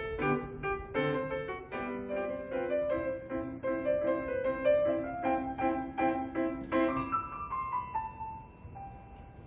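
Piano being played, a quick run of notes, then a single bright bell 'ding' about seven seconds in that rings on for a couple of seconds while a few softer descending notes follow.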